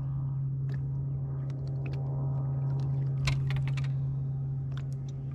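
Steady low hum of a boat motor at an unchanging pitch, with scattered light clicks and knocks over it, the sharpest about three seconds in.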